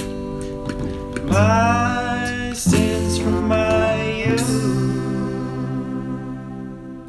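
Final bars of a slow soul song with acoustic guitar: a voice sings a note that rises into a held pitch, then a second held note, and the last guitar chord rings on and fades away near the end.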